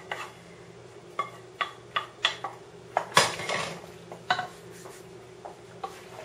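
Metal spoon knocking and scraping against a pot while pasta is stirred together with the other ingredients: irregular clinks, with one louder, longer scrape about three seconds in.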